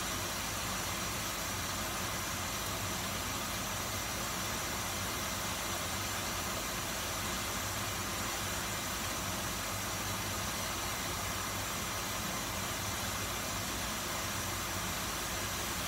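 Steady whirring hum of a kitchen range hood exhaust fan, an even hiss with a low hum, unchanging throughout.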